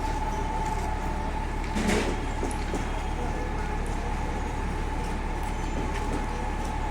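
Heavy machinery running with a steady high whine over a rumbling noise, and one loud clank about two seconds in.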